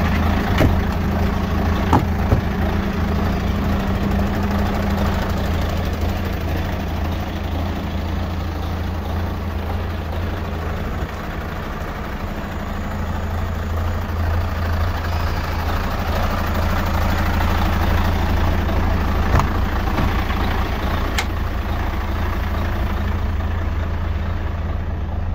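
Mercedes-Benz Actros 1840's V6 diesel engine idling steadily, with a few brief clicks over it.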